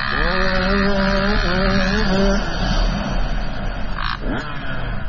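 Motocross dirt bike engine running at high revs, holding one steady note for about two seconds before it drops away, under a constant rush of wind noise.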